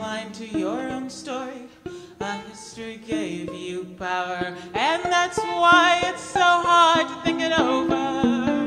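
A woman singing over pizzicato violin, with short plucked notes repeating beneath her voice. About five seconds in, her voice slides up into a louder held note with vibrato.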